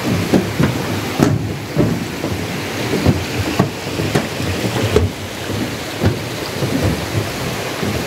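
Walking footsteps on a dirt forest trail, heard as dull thumps about twice a second close to the microphone, over a steady rushing noise.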